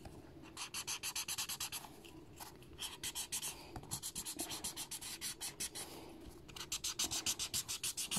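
Felt tip of a yellow highlighter scribbled back and forth on sketchbook paper, colouring in. It comes in quick scratchy strokes, about eight a second, in several runs with short pauses between them.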